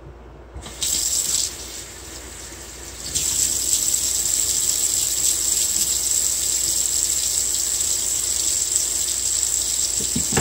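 Water running from a tap: a brief gush just under a second in, then a steady flow from about three seconds in, as a mesh bath pouf is wetted under it for lathering soap.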